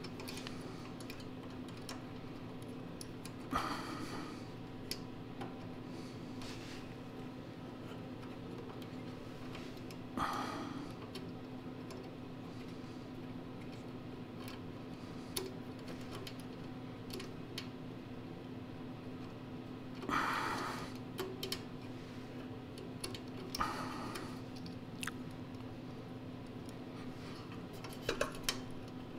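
A handful of brief metallic clicks and rattles from small carburetor linkage parts being handled and hooked up by hand, over a steady low hum.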